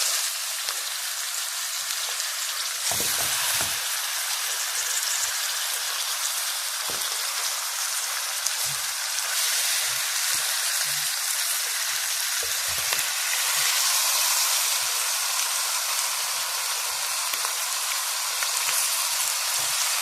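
Chicken pieces frying in hot oil with onion, green pepper and garlic in a tray on the stove, a steady sizzle, with occasional knocks as the pieces are turned.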